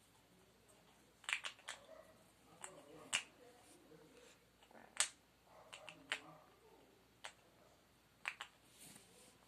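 A severe macaw's beak making sharp, irregular clicks, a dozen or so, some in quick pairs, as it picks at and shreds a paper towel, with soft paper rustling between them.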